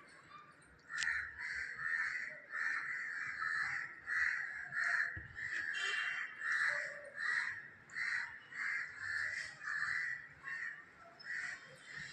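A parrot squawking: a long run of harsh, evenly repeated calls, about one and a half a second, starting about a second in.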